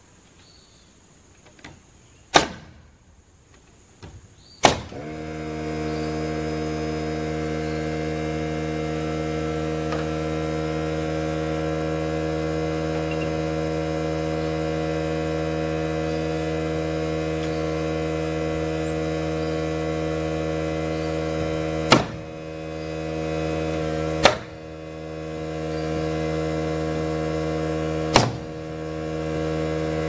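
Sharp single shots of a pneumatic nail gun, then a portable air compressor's motor kicks on about five seconds in and runs with a steady hum. Three more nail-gun shots come in the second half, two close together and one near the end.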